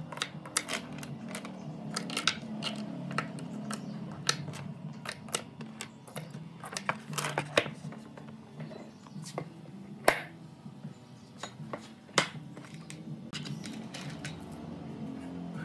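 Irregular metallic clicks and clinks of small steel ball bearings being slipped onto bolts and washers and picked from a loose pile, with a few sharper clinks about halfway through and near two-thirds in.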